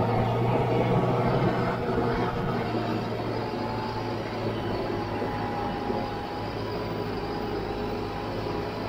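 Valtra C120 tractor's diesel engine running with a steady drone while it pulls a slurry tanker across a field; a little louder for the first two seconds, then even.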